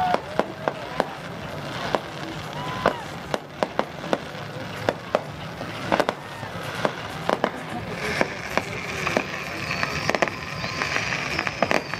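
Fireworks going off in quick, irregular bangs, with a dense crackle and high whistles building from about eight seconds in.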